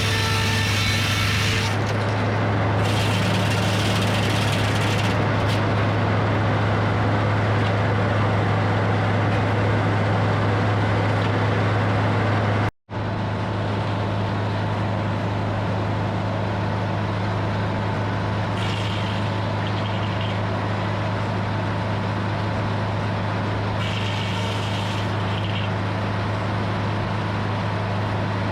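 Hydraulic sawmill running steadily: a constant engine drone with a strong low hum, and higher-pitched noise that comes and goes. The sound breaks off for an instant about 13 seconds in.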